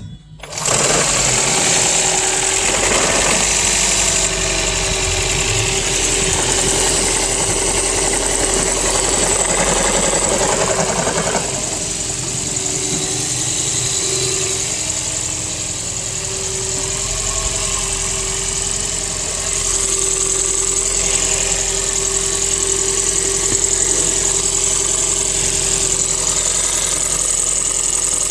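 A 2004 Toyota Prius's 1.5-litre four-cylinder petrol engine coming on suddenly about half a second in and then running steadily at idle. About eleven seconds in, part of the sound drops away and it runs a little quieter.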